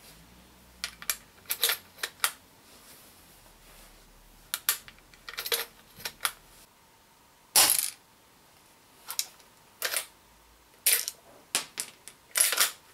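Umarex Legends Cowboy CO2 lever-action rifle being worked by hand: a run of sharp metallic clicks and clinks from the lever action and its shell-ejecting cartridges. The loudest, longest burst comes about seven and a half seconds in, with another cluster near the end.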